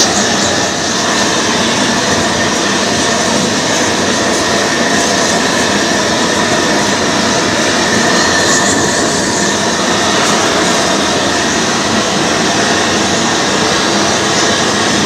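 A gas torch burning with a steady rushing flame, heating a copper boiler for silver soldering.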